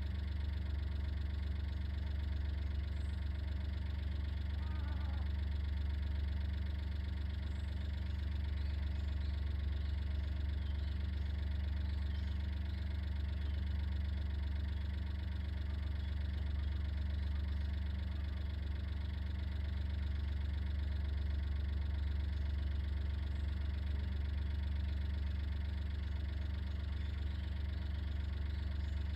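Steady low hum of an idling engine, unchanging throughout, with a faint falling chirp about five seconds in.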